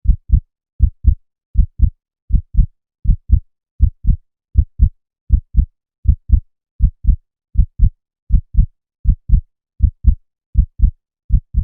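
Human heartbeat: steady, regular lub-dub pairs of low thumps, about 80 beats a minute, with clean gaps between the beats.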